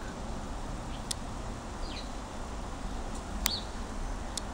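A few short, high bird chirps that drop in pitch, over a steady hiss of rain, with a few sharp ticks.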